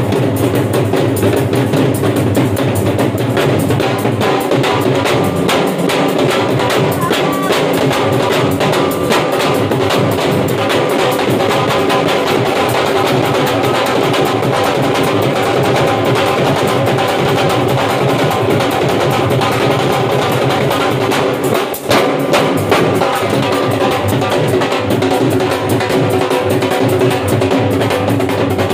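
Punjabi dhols, at least two, beaten with sticks in a fast, steady, driving rhythm, with a brief drop in loudness about 22 seconds in.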